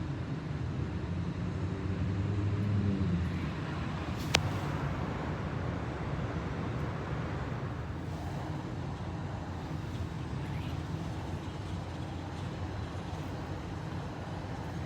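Steady outdoor road-traffic noise, with a vehicle's engine hum swelling and rising between one and three seconds in. A single sharp click about four seconds in.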